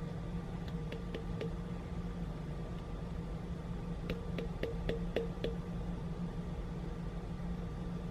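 A steady low machine hum, with light clicks over it: four about a second in, and a quick run of about seven between four and five and a half seconds.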